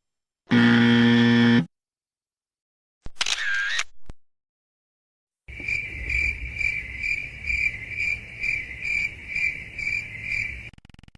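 A run of separate sound effects with silent gaps: a loud electric buzzer held for about a second, a brief high-pitched sound that dips and rises, then a cricket chirping steadily at about three chirps a second for about five seconds, and a few faint clicks near the end.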